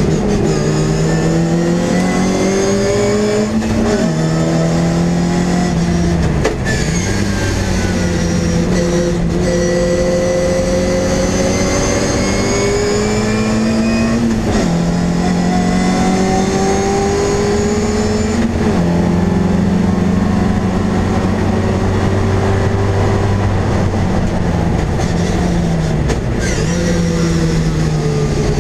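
MG Midget race car's engine heard from inside the cockpit under hard acceleration, its pitch climbing through each gear and dropping sharply at each gear change, several times over.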